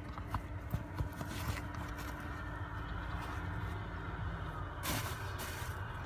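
Scattered light clicks and a short scrape about five seconds in, over a steady low hum: handling noise from work on a pickup's plastic interior trim panels.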